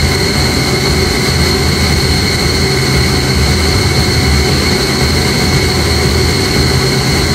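Steady drone of running chiller-plant machinery: a low hum with a high, steady whine above it.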